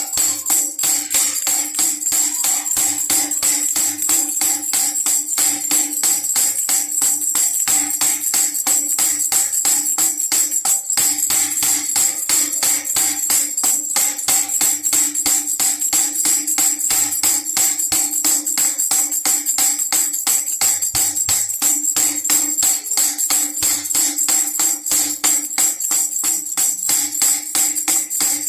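Baby rattle shaken in a rapid, steady rhythm, jingling brightly, with a steady low tone beneath.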